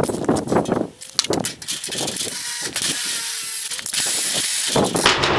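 A hole being made in a steel tab with a power tool. Metal clanks and knocks at first, then a steady high hiss, which turns louder and fuller just before the end.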